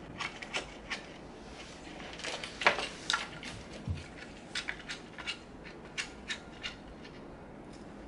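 Scattered small clicks and knocks of a Beachtek DXA-MICRO-PRO XLR adapter and a camera being handled and mounted together. One sharper knock comes about two and a half seconds in.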